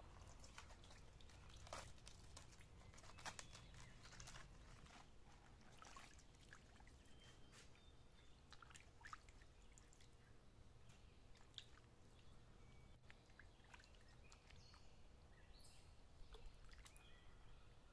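Faint splashes, drips and soft clicks as vegetables are handled and set down in a metal basin of water, over a low steady hum. A few faint bird chirps near the end.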